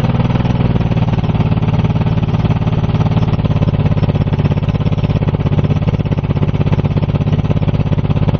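Car engine being run to destruction, held steadily at high revs with a rapid, even pulse while running on the few cylinders that still fire after several have failed.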